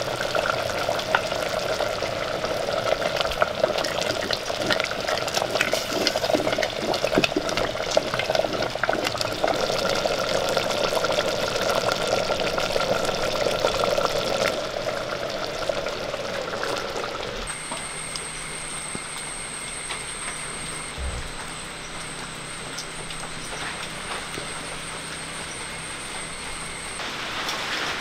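Thick shallot-and-jaggery rice kanji bubbling and simmering in a clay pot over a wood fire, a dense hiss full of small pops and crackles. About two-thirds of the way in the bubbling stops, leaving a quieter steady hiss with a faint high whine.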